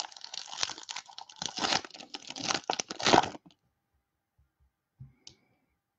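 Foil trading-card pack wrapper crinkling and tearing as it is opened and handled, stopping about three and a half seconds in. A faint short click follows about five seconds in.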